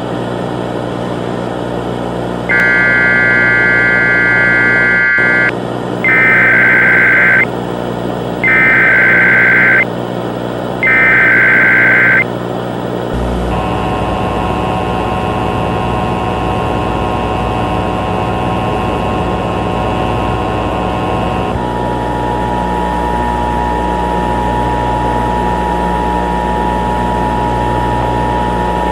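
Emergency Alert System signal: a burst of high electronic tones, then three short screechy data bursts of the SAME header, each about a second long. These are followed by the steady two-tone EAS attention signal, whose pitch shifts partway through, all over a constant low hum.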